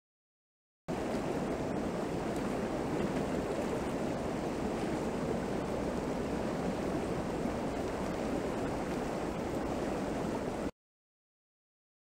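River water flowing and rushing, a steady noise that cuts in about a second in and stops abruptly near the end.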